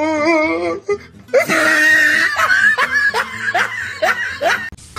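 Laughter: a wavering laugh, then a brief pause about a second in, then a long run of quick, high, rising giggles.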